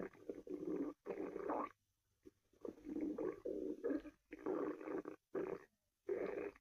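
A stomach growling and gurgling in an irregular run of bursts, each about half a second to a second long, broken by short silent gaps.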